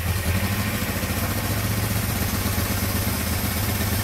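Honda CL350's air-cooled parallel-twin engine, just fired up, idling steadily at a fast idle while still cold.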